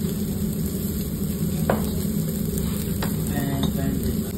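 Slices of beef sizzling on the wire mesh of a tabletop yakiniku grill, over a steady low hum. A couple of light clicks come through, a little under two seconds and about three seconds in.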